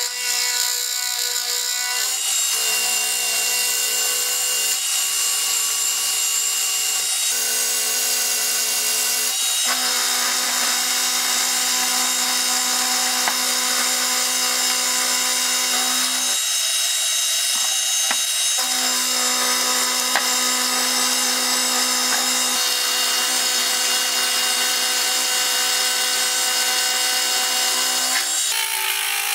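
Sieg benchtop milling machine running an end mill through a steel workpiece: a steady motor and spindle whine over the hiss of the cut. It shifts in pitch or breaks off and starts again several times.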